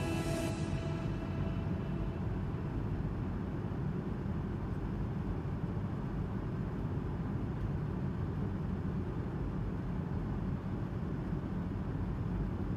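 Steady low rumble and hiss of an Airbus A220's engines and airflow heard inside the passenger cabin, holding even throughout, with the tail of background music fading out in the first second.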